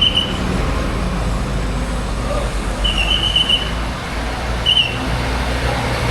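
Bus diesel engine running with a steady low rumble amid traffic noise, cut by short, high, single-pitch whistle blasts: one as it begins, one about three seconds in and a briefer one just before five seconds.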